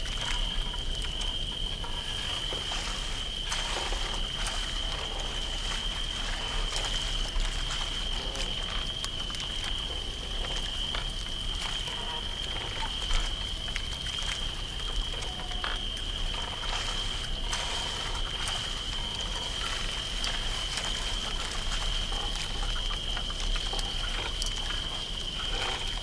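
Night swamp ambience: a steady, unbroken cricket chorus over frogs and trickling water, with scattered faint clicks and a couple of brief knocks.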